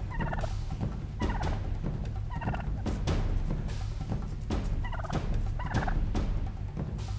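White domestic turkey tom gobbling over and over, short rattling calls about once a second, while it struts with its tail fanned, agitated.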